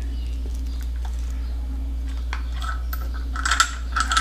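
Brass CO2 regulator and fittings clicking and rattling as the regulator is twisted by hand onto a wye splitter, with the hoses knocking against it. The clicks are sparse at first and come in a quick cluster near the end, over a steady low hum.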